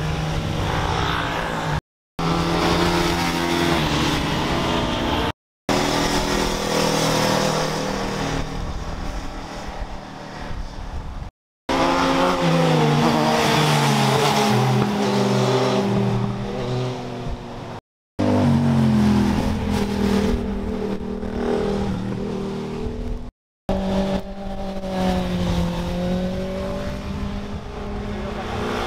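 High-performance vehicle engines passing through a mountain-road bend one after another, in six short clips joined with brief silent cuts. In each pass the engine note falls as the vehicle brakes and passes, then rises again as it accelerates away.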